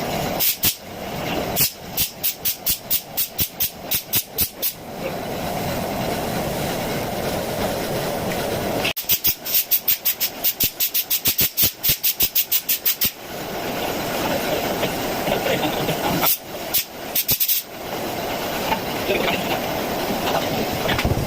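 Spray painting with a compressor-fed spray gun: a steady hiss of spraying air, broken in stretches by rapid, evenly spaced clicking of about three to four a second.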